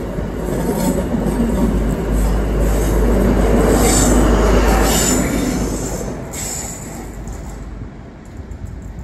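High Speed Train with a Class 43 diesel power car at the rear, passing through a station. The rumble of the coaches builds to its loudest about three to five seconds in as the rear power car goes by, then fades as the train draws away.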